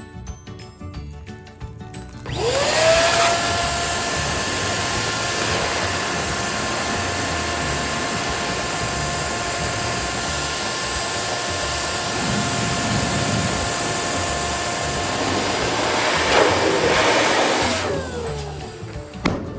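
Electric balloon inflator running for about fifteen seconds, a steady rush of air with a motor whine. The whine rises quickly as it starts about two seconds in and falls away as it switches off near the end.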